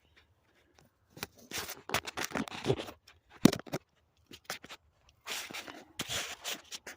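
Firewood logs being handled: scraping and rubbing of wood, with one sharp knock about three and a half seconds in.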